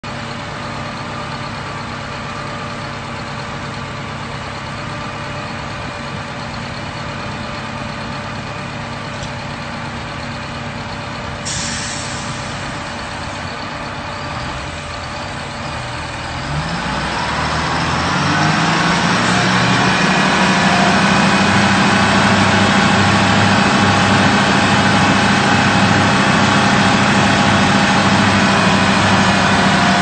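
Heavy engine of the well-plugging rig running steadily, then revving up about 16 seconds in and holding at a higher, louder speed. A short hiss about 11 seconds in.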